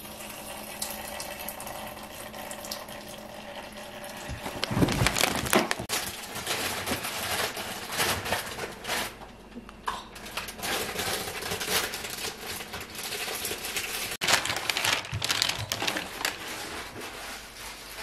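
Grocery packaging being handled: plastic bags and wrappers rustling and crinkling, with clicks and knocks as items are picked up and set down.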